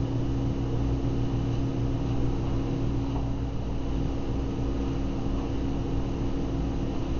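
A steady low hum with an even hiss over it, unchanging in level.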